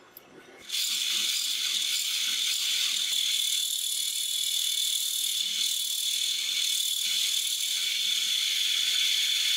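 Abrasive sanding drum on a drill press grinding the curved finger scallops into a steel knife blank: a steady high-pitched hiss with a thin steady whine, starting about a second in and cutting off abruptly.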